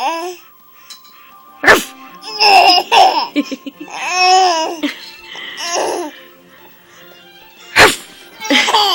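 A nine-month-old baby laughing in several high-pitched bursts after a woman's short imitation dog barks, one about two seconds in and another near the end.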